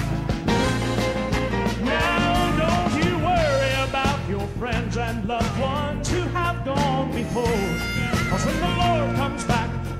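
Southern gospel quartet and band performing live: drums, electric guitar and bass playing, with voices singing.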